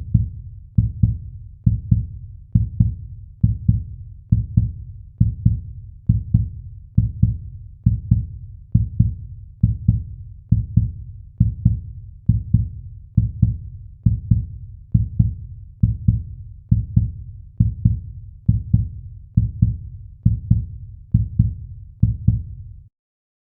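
Heartbeat sound effect: low, deep double thumps in a lub-dub pattern, repeating steadily a little over once a second, stopping shortly before the end.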